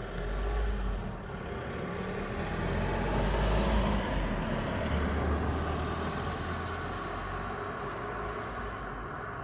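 A road vehicle passing by: engine and tyre noise swelling to a peak about four seconds in, then slowly fading.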